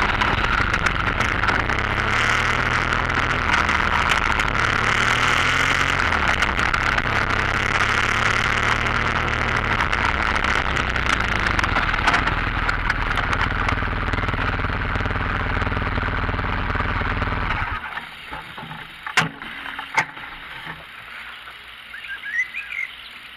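BMW R1200GS Adventure's flat-twin engine running on the move, its pitch rising and falling with the throttle, under heavy wind noise on the microphone. About 18 seconds in the sound drops sharply to much quieter, followed by two sharp knocks.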